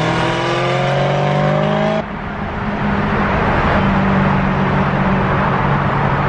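Car engine accelerating, heard from inside the cabin, its pitch rising steadily for about two seconds. After a sudden cut it settles into a steady engine drone under loud road noise.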